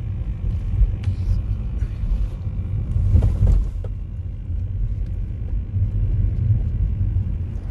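Low, steady road rumble of a car driving, heard from inside the cabin, with a few faint clicks and a brief swell about three seconds in.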